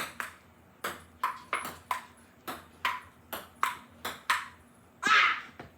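A rally of table tennis played with a cat toy ball: about a dozen sharp clicks of the ball striking paddles and the table, two to three a second. The rally ends with a loud shout of "Ah!" near the end.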